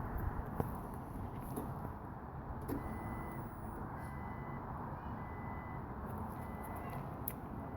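Faint electronic warning chime from a 1999 Jeep Cherokee: a short high beep repeating about every three-quarters of a second, starting about three seconds in. It sounds over a low steady rumble with a few light clicks.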